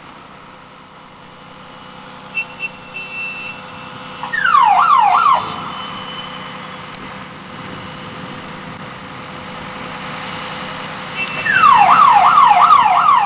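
Emergency vehicle siren sounding in two short bursts of rapid falling yelps, about three sweeps a second: a brief burst about four seconds in and a longer one near the end, over a steady background of traffic.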